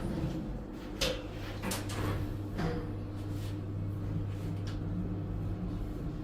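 Toshiba traction elevator: a steady low hum with a few sharp clicks and knocks from the doors and mechanism, the loudest about a second in.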